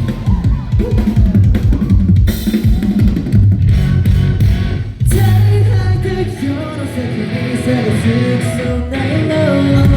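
Loud pop song played live over a PA: drum kit with a heavy kick drum, bass and guitar, with a voice singing over it.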